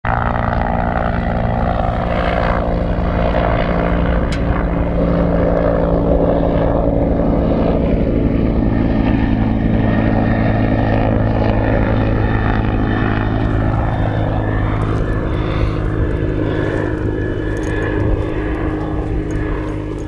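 Small propeller aircraft flying low overhead, its engine drone steady and then dropping in pitch about two-thirds of the way through as it passes.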